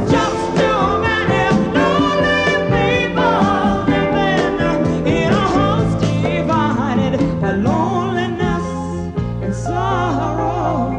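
A live pop band playing with a woman singing lead over drums and percussion.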